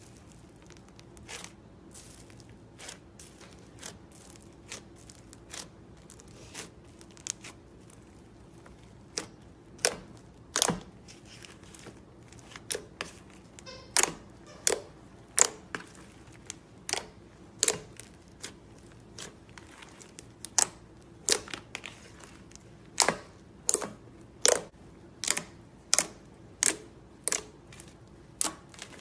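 Slime being worked by hand, giving a string of sharp clicking pops about one to two a second, louder from about ten seconds in.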